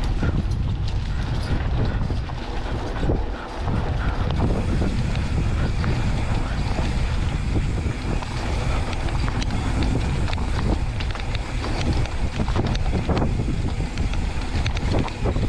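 Wind buffeting the camera microphone while a mountain bike rides down a dirt singletrack, with a steady low rumble from tyres on the trail and many short rattles and clicks from the bike over bumps.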